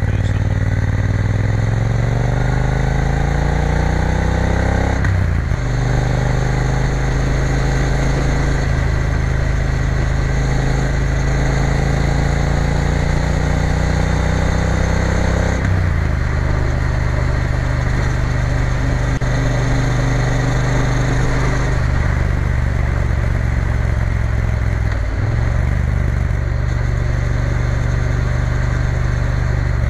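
Triumph Bonneville T120's parallel-twin engine pulling hard, its pitch climbing as the bike accelerates, with upshifts about five seconds in and about halfway through, and a brief dip in revs later on.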